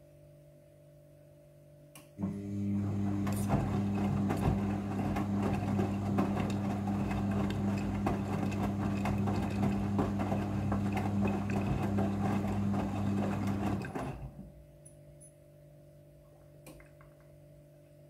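Midea front-loading washing machine rinsing: about two seconds in the drum motor starts and tumbles the wet laundry for about twelve seconds with a steady motor hum and the churn of water and clothes, then stops.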